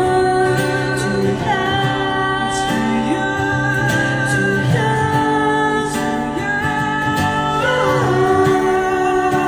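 Live pop song with acoustic guitar and long held sung notes between the lyric lines.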